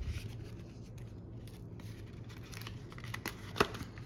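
Hands handling a mail package's packaging: light scrapes and rustles with scattered small clicks, one sharper click about three and a half seconds in.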